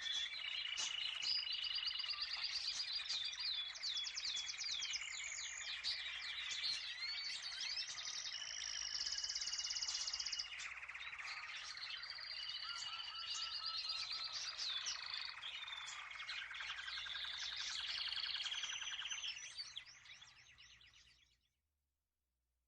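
Canary singing a long, continuous song of rapid trills and warbling notes, fading out near the end.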